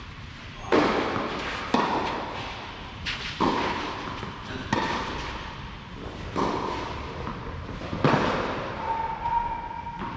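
Tennis rally: the ball struck by rackets and bouncing on the clay, a sharp pop about every one to two seconds, six or so in all, each echoing under the covered court's roof.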